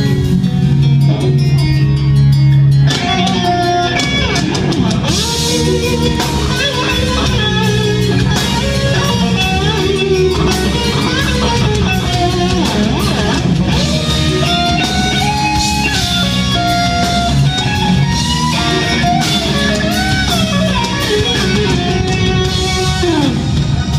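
Live rock band playing an instrumental passage: a low chord held for about three seconds, then drums come in and an electric guitar plays a lead line with bent notes over bass guitar and keyboard.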